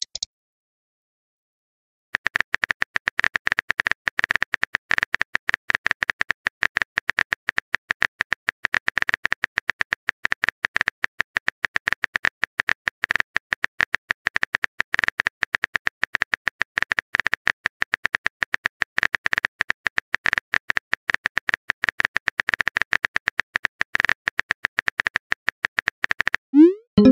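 Rapid phone-keyboard typing clicks, many a second and evenly paced, starting about two seconds in, as a long text message is typed out. Near the end they stop, and a short rising message-sent tone follows.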